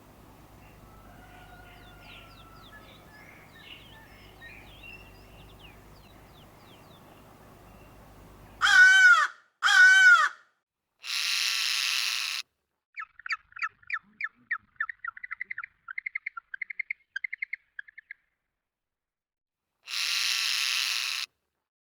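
Faint birdsong chirping over a low hum, then about nine seconds in the background cuts out and loud bird calls follow one by one: two arched calls, a harsh rasping call, a quick series of short notes that speeds up, and another harsh call near the end.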